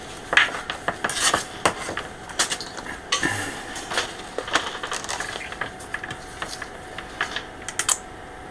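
Irregular light clicks and clatter of multimeter test leads and probes being picked up and handled, busiest in the first half and thinning out near the end.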